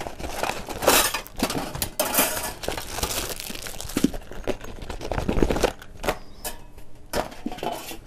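Thin stainless-steel rods of a folding fire-pit frame clinking and rattling against each other as it is taken out of a plastic zip bag and unfolded, with rustling of the bag. The sound is a series of irregular light metal clinks and knocks.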